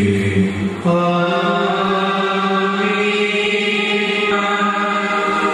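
Liturgical chant sung in long, steady held notes, moving to a new note about a second in.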